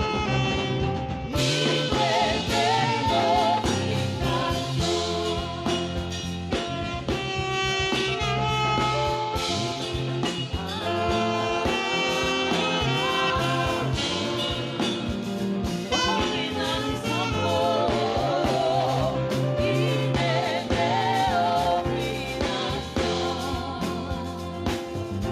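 Saxophone playing a slow worship melody with a wavering vibrato over a sustained backing of low bass notes and chords.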